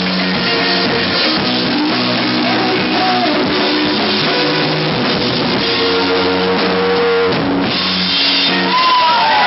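Live rock band playing loudly: electric guitars through amplifiers over a drum kit with cymbals. The recording is of poor quality.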